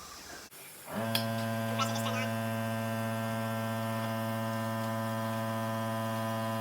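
Electric air compressor motor kicking on about a second in and running with a steady hum while a tubeless tire is being inflated.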